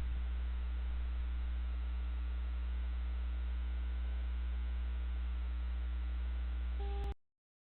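Steady electrical mains hum with a faint hiss, the recording's own noise, which cuts off abruptly about seven seconds in.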